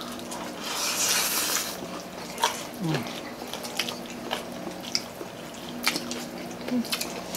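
Close-miked eating sounds: wet chewing and sharp lip-smacking clicks as several people eat fried chicken and rice with their hands. A hissing stretch comes about a second in.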